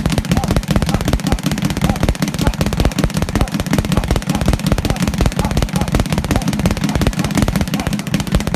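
Speed bag being punched at high speed, the leather bag rebounding off its wooden platform in a fast, unbroken rattle of blows.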